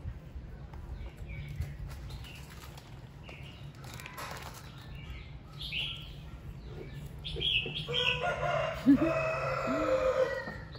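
A rooster crows once near the end, one long call held for about two and a half seconds, the loudest sound here, over a steady low hum. Short high chirps come and go before it.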